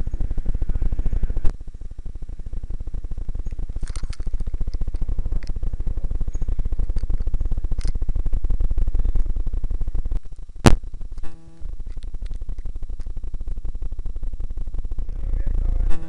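Rumbling wind and fast rattling picked up by a camera riding along on a mountain bike ride over paved village streets. There is a sharp click about ten seconds in and a short pitched squeak just after it.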